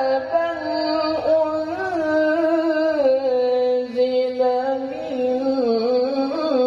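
A man reciting the Quran solo in the melodic tilawah style, one unbroken sung phrase of long held, ornamented notes that steps down in pitch about three seconds in, amplified through a microphone.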